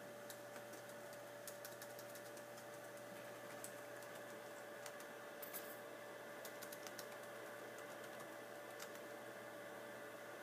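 Faint steady hum with one constant tone, overlaid by scattered light clicks at irregular intervals, a few bunched together about five and a half seconds in.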